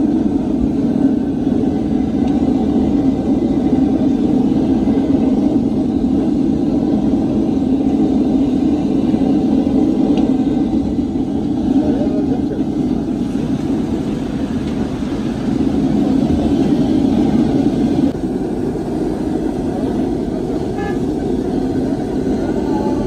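Steady low rumble of motor traffic, with a few short tonal sounds near the end.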